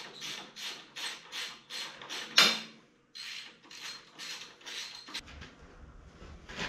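Hand socket ratchet clicking in a steady run, about three clicks a second, as a bolt is turned at the motorcycle's handlebar clamp. There is one louder clack about two and a half seconds in and a brief pause, then the clicking resumes and stops about five seconds in.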